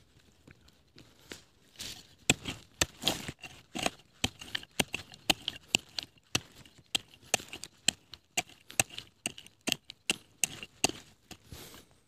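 A quick, irregular run of sharp snaps, cracks and tearing, two or three a second, starting about two seconds in, like plant material being broken or torn by hand.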